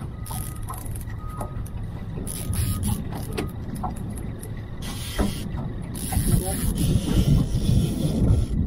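Fishing reel being cranked with a bent rod during a fish fight, its gears whirring, over wind rumbling on the microphone that gets stronger in the second half.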